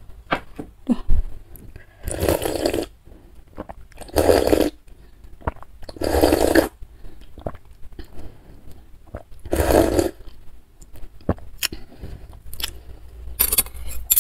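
Close-miked eating sounds from bakso soup: four long slurps of broth, each under a second and spaced a couple of seconds apart, with wet chewing and mouth clicks in between.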